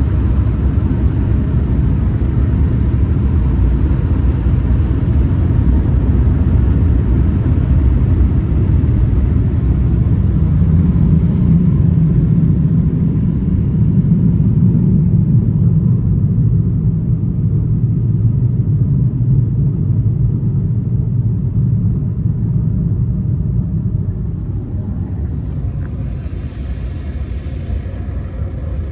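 LaserWash 360+ touchless in-bay car wash running: a steady, loud low rumble of machinery and water, easing off somewhat about 24 seconds in.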